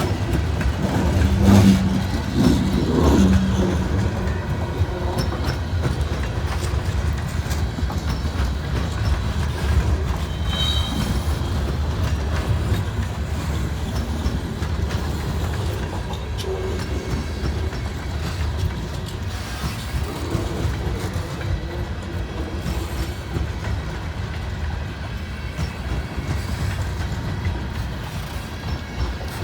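A long freight train's cars rolling past on the rails, a steady rumble. There is a brief high squeal about ten seconds in.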